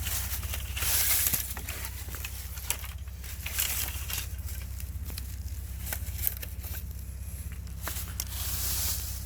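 Stick digging and scraping into soil and dry leaf litter, with irregular crackles, scratches and snaps, heaviest about a second in and near the end, over a steady low rumble.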